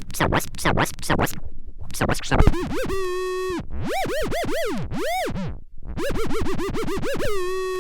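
Turntable scratching: a vinyl record is pushed back and forth by hand, its sound swooping up and down in pitch in quick strokes. Near the end the record is let run and settles into a steady buzzy tone.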